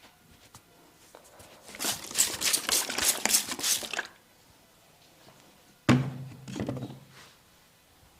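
Rapid series of hand slaps on skin: percussive chopping and slapping massage strokes, fast and even, for about two seconds. A little later comes one heavier thump with a brief low resonance after it.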